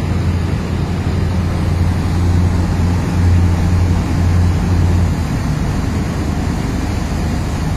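Thames Clipper river-bus engines running steadily under way: a continuous low drone with the rush of churning wake water and wind across the open rear deck.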